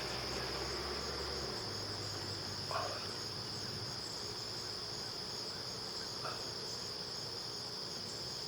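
Steady high-pitched insect chorus, one unbroken shrill tone. Two faint short chirps come about three and six seconds in.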